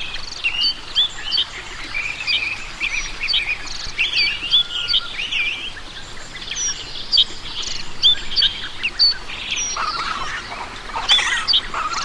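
Small birds chirping and calling, with many short high notes and whistles overlapping over a steady background hiss.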